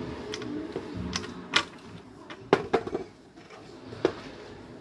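A series of separate knocks and clatters as a plank and a wedge are shifted and set in place, the loudest knock about halfway through.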